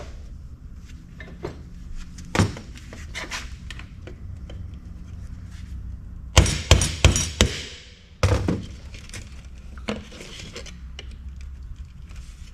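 Hammer blows on the kiosk's metal parts as the plastic push-in studs holding the cooling fans are knocked out. Scattered knocks and clatter lead to a quick run of four or five sharp strikes about six seconds in, then one more heavy hit about a second later.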